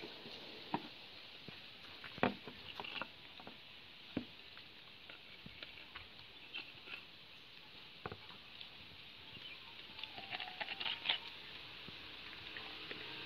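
Scattered light taps and knocks as coconut shell pieces are handled and set down on a tabletop, with a quick run of small ticks about ten seconds in, over a steady background hiss.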